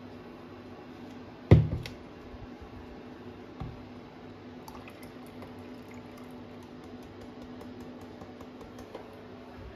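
A plastic measuring jug set down with a loud thump on a glass-ceramic hob about a second and a half in. A softer knock follows, then faint squishy clicks as the last of a cream tub is tapped into the jug, over a steady low hum.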